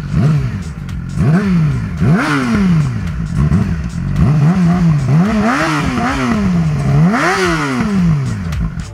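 Yamaha YZF-R6's 600 cc inline-four, fitted with a Toce Double Down slip-on exhaust, blipped repeatedly from idle at a standstill: about seven quick rev rises, each falling back to idle.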